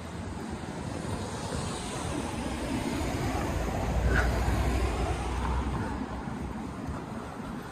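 A car driving past on the street, its tyre and engine noise swelling to a peak about four seconds in and then fading away.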